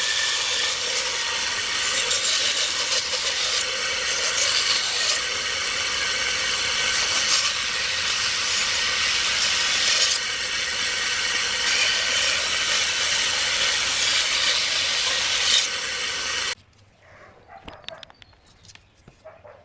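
Power tool working wood, running steadily with a dense hiss. It cuts off suddenly near the end, leaving a few faint ticks.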